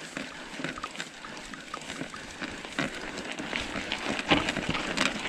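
Crackling crunch of mountain-bike tyres grinding up loose sandy gravel on a steep climb, with many small scattered clicks.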